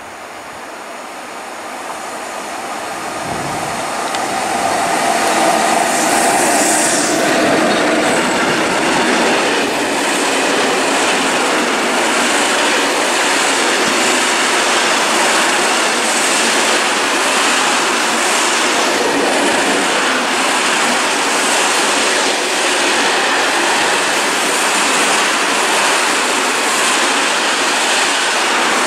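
A Škoda class 183 electric locomotive hauling a train of open coal wagons grows louder as it approaches over the first few seconds, then passes close by. The wagons then roll past with a steady rumble and a regular clatter of wheels over the rails.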